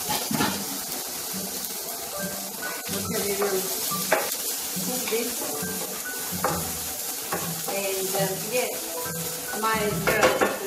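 Chopped onion and chili sizzling in olive oil in an electric skillet, stirred with a wooden spatula that scrapes across the pan now and then. A few louder scrapes stand out, about four seconds in, about six and a half seconds in, and near the end. Background music plays underneath.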